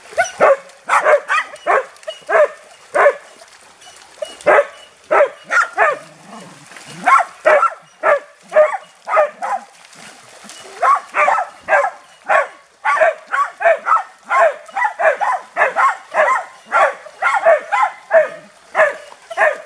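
Shetland sheepdog barking over and over, in quick runs of short barks with brief pauses between the runs.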